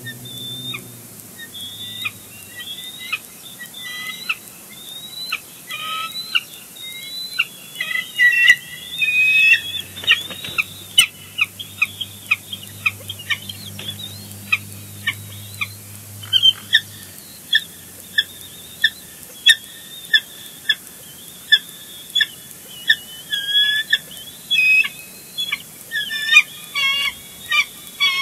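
Bald eagles calling: a long run of high, thin chirping and piping calls. They are scattered at first, then come as regular sharp chirps about one or two a second, with quick chattering clusters near the end.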